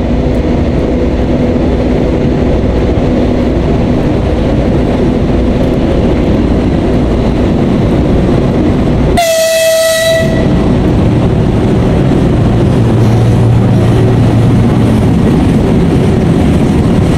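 VL10U two-section electric locomotive hauling a freight train past: steady rumble and wheel noise of the locomotive and wagons. Just past the middle, one horn blast of about a second.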